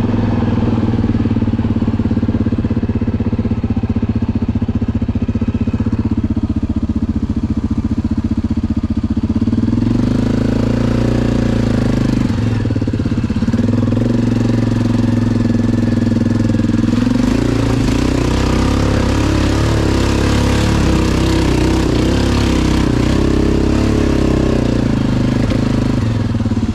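ATV engine running under way, its speed rising and falling a few times as the throttle is worked through the trail.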